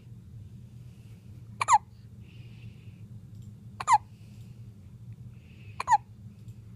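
Hiccups: three short, sharp hiccups about two seconds apart, each dropping in pitch and followed by a faint hiss.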